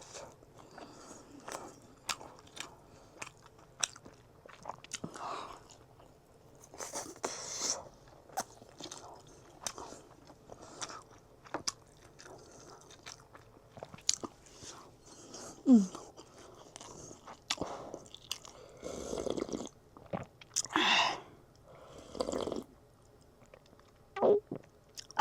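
A person chewing and eating a homemade rice-and-chicken curry meal: irregular wet mouth clicks, bites and soft crunches.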